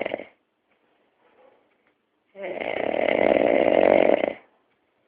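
A sleeping pet snoring loudly: the end of one snore right at the start, then one full snore lasting about two seconds in the middle, with quiet breathing gaps between.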